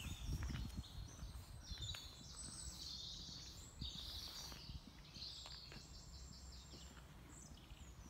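Small songbirds singing in woodland: quick high chirps and trills from about two seconds in until near the end. A few footsteps are heard in the first second, over a low steady rumble.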